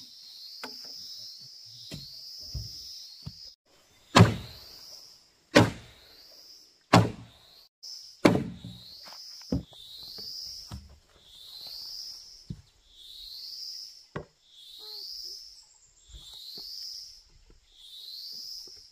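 Heavy knocks on wood: four loud blows about a second and a half apart a few seconds in, then a few lighter ones. Under them an insect repeats a short rising chirp a little less than once a second.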